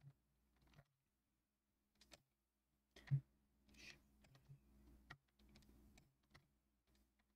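Near silence broken by faint, scattered clicks of a computer keyboard and mouse, the strongest about three seconds in.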